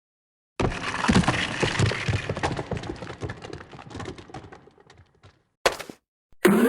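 Crash of a heap of hard objects falling and clattering, a dense run of knocks that thins out and fades over about five seconds, followed by one short separate clatter.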